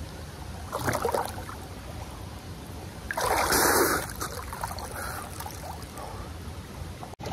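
River water flowing steadily, with a louder rush of noise lasting under a second about three seconds in.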